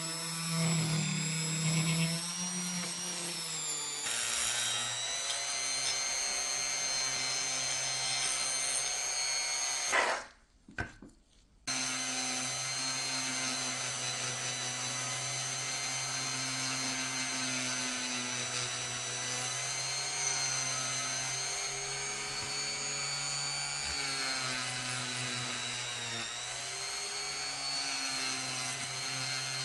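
Electric power tool motor running steadily under load. Its pitch drops about four seconds in. It stops briefly about ten seconds in, starts again, and its pitch dips once more near the end.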